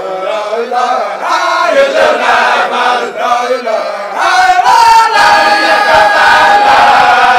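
A group of voices chanting together. The melody moves for the first few seconds, then settles into long held notes from about five seconds in.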